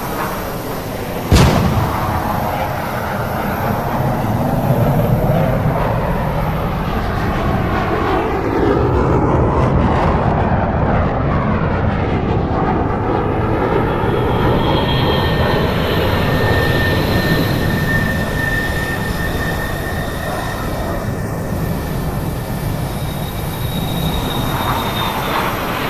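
Airbus A330 jet engines running with a loud rushing noise, broken by one sudden heavy thump about a second in. About halfway through, steady high-pitched whines join the rush.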